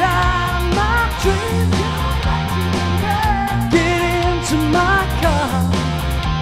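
Live band playing an instrumental passage of an upbeat pop-rock song: a steady drum beat and bass under a bending lead melody.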